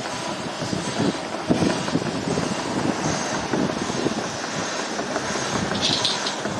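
A train running past on the main line, a steady rumble with irregular rattles and knocks from the wheels, and a brief hiss about six seconds in.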